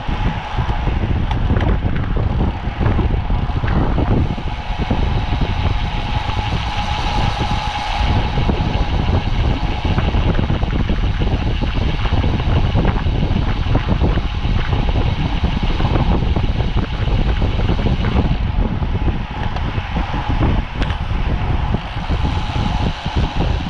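Wind rushing over the microphone of a camera riding on a road racing bike at race speed, with road and drivetrain rumble and a steady hum.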